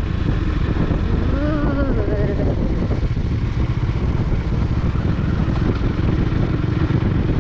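Motorcycle riding at road speed: steady engine and wind rush over the microphone, with a brief voice sounding about a second and a half in.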